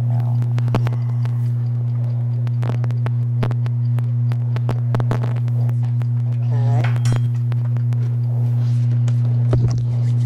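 A loud, steady low hum runs throughout, with scattered light clicks and taps from a spice shaker being shaken over a stainless steel soup pot.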